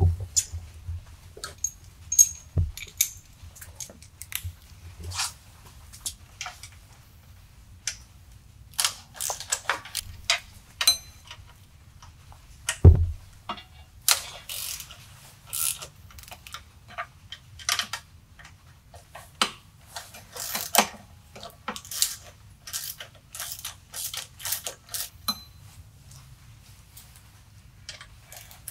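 Socket ratchet wrench clicking in short runs as the transmission housing bolts on a mud motor are loosened, mixed with the clatter of hand tools. A single heavy thump about thirteen seconds in.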